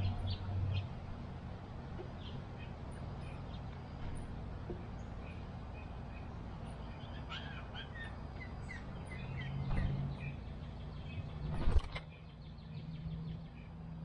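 Backyard birds chirping in short, scattered high notes, busiest a little past halfway, over a low steady hum. A single loud knock near the end is the loudest sound.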